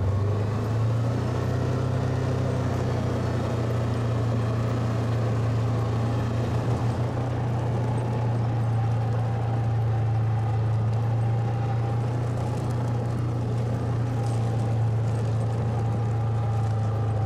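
Side-by-side utility vehicle's engine running at a steady, even pitch as it drives along.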